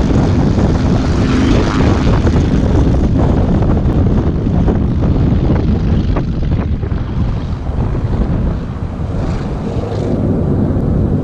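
Twin propeller engines of a fixed-wing uncrewed aircraft running at high power for take-off, mixed with a rushing noise. The sound eases a little about eight seconds in and builds again near the end.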